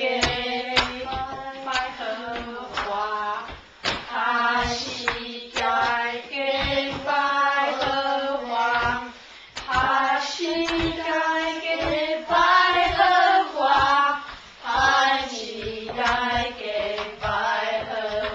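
Several voices, children's and a woman's, singing a song together in held, stepping notes, with sharp hits keeping the beat alongside.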